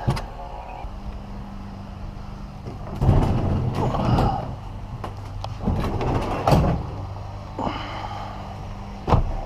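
Plastic sit-on-top kayak being dragged and shifted on a concrete driveway: bursts of scraping and a few sharp knocks, over a steady low hum that begins about a second in.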